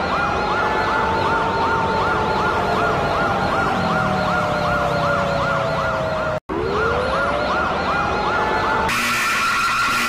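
Siren-style emergency alert tone: a fast warble, about three cycles a second, over a slower wail that rises and then slowly falls. It cuts out for an instant about six and a half seconds in and starts again with a rising wail. Near the end it changes to a different, brighter alarm tone.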